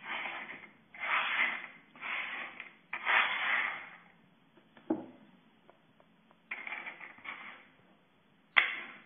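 Hands sliding and rubbing over a wooden tabletop in a string of short scrapes, with a sharp knock about five seconds in and another near the end.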